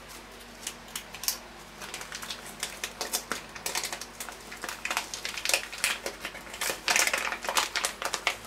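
Plastic packet of dried thyme being handled and opened, crinkling as a rapid, irregular run of sharp crackles and clicks that thickens in the second half.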